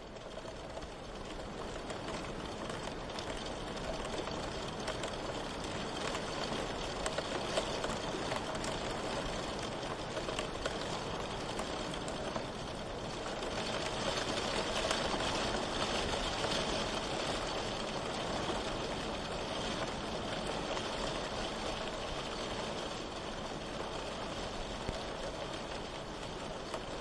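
Steady rain falling, a dense even hiss with fine drop patter, fading up at the very start and swelling slightly about halfway through.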